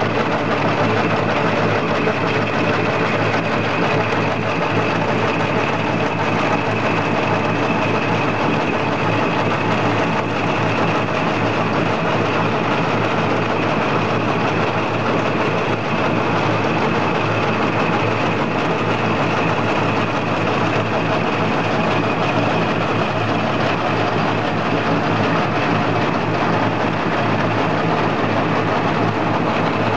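Two-colour napkin making machine running at a steady speed, with its web feeding, flexographic printing, embossing and folding units. The noise is loud, even and unbroken, with a steady high tone running through it.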